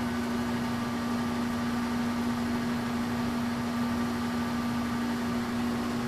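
Steady machine hum with a constant pitched drone and a noisy wash, from machinery left running in the shop.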